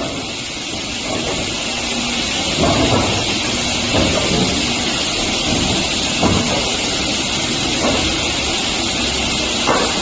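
Industrial multi-head wood cut-off saw machine running with a steady noise and a faint hum. About five brief clunks come at uneven intervals as boards are cut or moved through.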